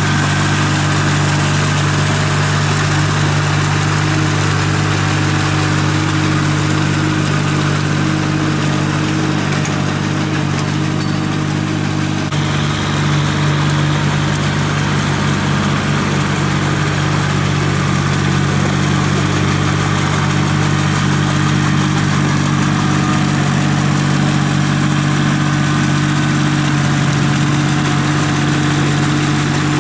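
Small Kubota tractor's diesel engine running at a steady, even pitch under load while it pulls cage wheels and a harrow through a flooded rice paddy.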